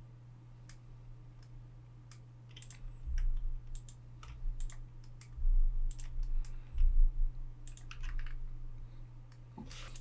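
Scattered clicks of a computer mouse and keyboard during 3D editing, over a steady low electrical hum. Several dull low thuds from about three seconds in are the loudest sounds.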